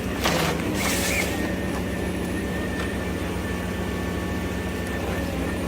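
Ponsse Ergo forestry harvester's engine running steadily, with a brief burst of hissing noise about half a second to a second in.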